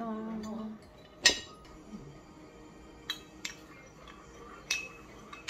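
Metal spoon clinking against a porcelain soup cup and dishes: one sharp clink about a second in, then a few lighter clinks.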